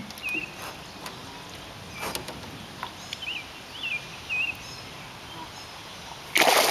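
Faint outdoor background with a few short bird chirps, then a loud splash of water about six seconds in as the released bass kicks away.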